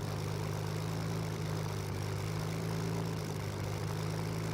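Steady aircraft engine drone, an even hum that holds unchanged.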